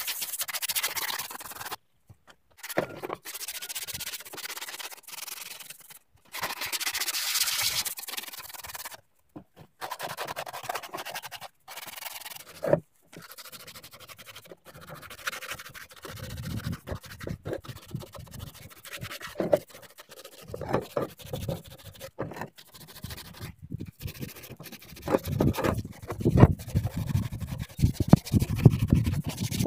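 Sandpaper rubbed by hand over the plastic covers of a Honda Dio scooter, the fan shroud and a round engine cover, in short scratchy back-and-forth strokes. The rubbing stops and restarts several times, and the strokes grow heavier in the second half.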